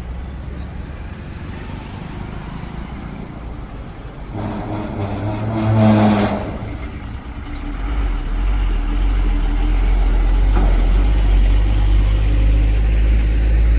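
Heavy highway traffic. A truck passes loudly with its engine note and a hiss peaking about six seconds in, then a heavy truck's engine runs with a steady low rumble close by.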